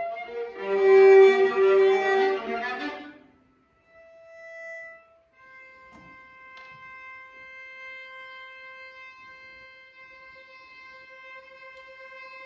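Viola and cello improvising with bows: several notes sounding together loudly for about three seconds, a short pause and one brief note, then one long steady held note, quieter, from about five seconds in.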